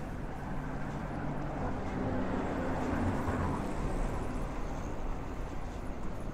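City street traffic: a car drives past close by, its engine and tyre noise swelling to a peak about three seconds in and then fading, over a steady background hum of traffic.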